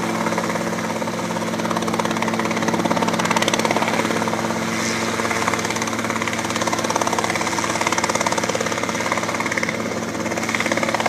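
Robinson R22 Beta II helicopter running steadily in flight: a steady engine hum under the fast, even beat of the rotor blades.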